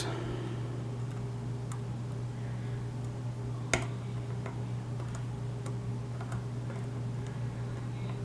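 Lock pick and tension wrench working the pins inside a challenge lock: faint, scattered small clicks as pins are lifted and set, with one sharper click nearly four seconds in.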